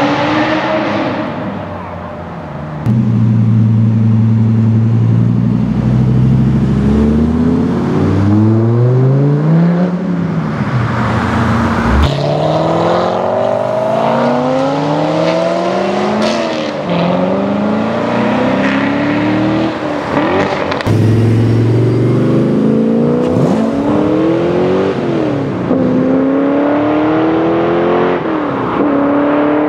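Chevrolet Corvette V8 engines accelerating hard past the roadside one after another. Each engine note climbs in pitch, drops back and climbs again as the cars pull away. A few seconds in, a deep steady rumble is held for several seconds before the next car accelerates.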